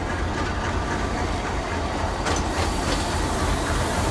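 DF11Z diesel-electric locomotive moving slowly with its diesel engine running in a steady low rumble. A few sharp wheel clicks over rail joints come in a little after two seconds.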